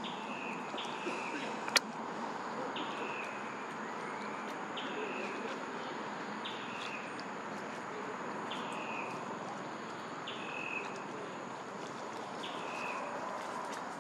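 A bird calling over and over, each call a short high note that drops in pitch, coming in pairs about every two seconds, over a steady hiss of forest insects. A single sharp click about two seconds in.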